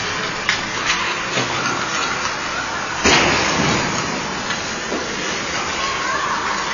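Ice rink noise from a hockey practice: skate blades scraping and sticks and pucks clacking on the ice, echoing in the arena. About three seconds in, one loud bang rings out and dies away over about a second.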